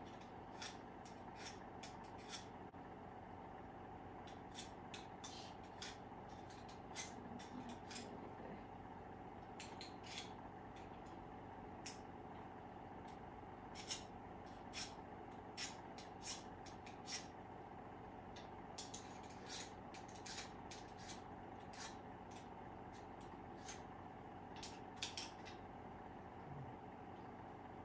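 Hand pruners being handled, opened and closed, giving irregular light metallic clicks and snips, with a faint steady hum underneath.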